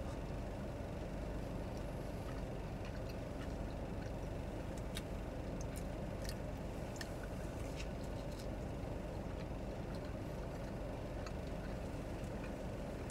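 Steady hum of a car's engine idling, heard inside the parked car's cabin, with a scattering of short mouth clicks from chewing a grilled cheese sandwich.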